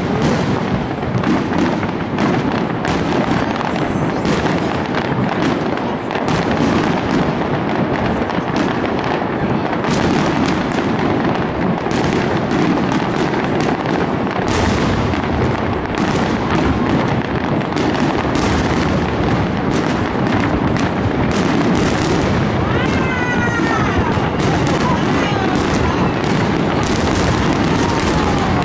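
Aerial fireworks shells bursting in a rapid, continuous barrage, bang after bang overlapping with no pause.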